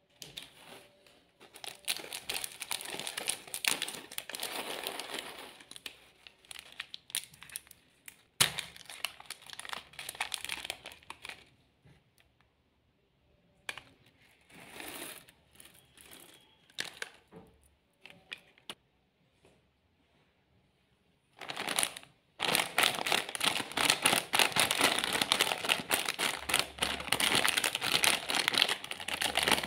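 Plastic candy and snack wrappers crinkling as packets are picked up and handled, in bursts with short pauses, and a sharp click about eight seconds in. In the last third the crinkling is denser and louder, as a foil-lined crisp bag (Polo Rings) is squeezed and turned in the hands.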